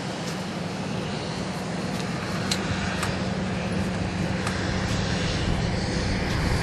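Steady engine hum with a low drone that strengthens near the end, with a few faint sharp clicks over it.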